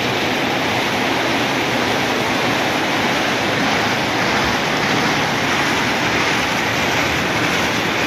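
Automatic car wash running: tall rotating cloth side brushes scrubbing a car amid spraying water, a steady rushing hiss.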